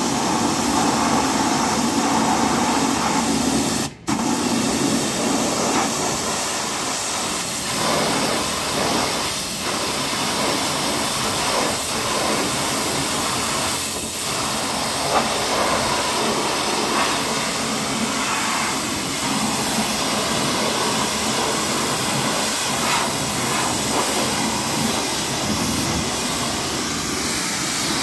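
Annovi Reverberi plunger-pump high-pressure washer (7.5 hp, 250 bar) spraying a jet of water against a car's wheel and bodywork: a steady, dense hiss, with the pump motor running underneath. The sound breaks off very briefly about four seconds in.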